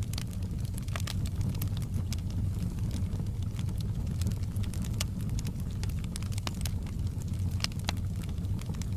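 Wood fire burning in a fireplace: a steady low roar of flames with irregular sharp crackles and pops throughout.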